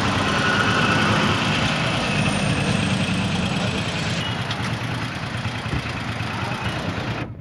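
Busy street traffic: motorcycle and other vehicle engines idling and running close by in a steady din. The sound cuts off abruptly near the end.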